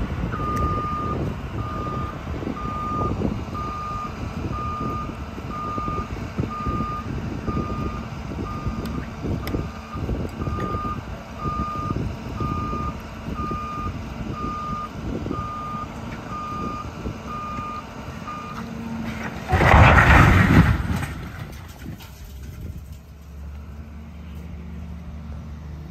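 Demolition of a concrete-block building by a hydraulic excavator: its diesel engine works over rumbling and clattering debris while a reversing alarm beeps steadily, a bit faster than once a second, until about two-thirds of the way through. Then the walls and roof collapse with a loud crash lasting about two seconds, after which the machine's engine runs on at a low steady hum.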